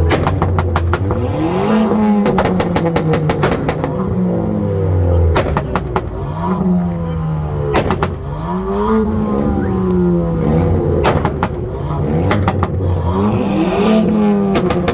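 Car engines revved hard over and over, their pitch climbing and dropping every second or two and overlapping, with clusters of sharp crackles and pops between the revs.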